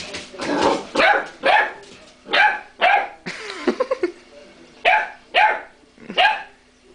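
Chocolate Labrador puppy barking repeatedly: about nine sharp barks at uneven intervals, with a quick run of short ones near the middle.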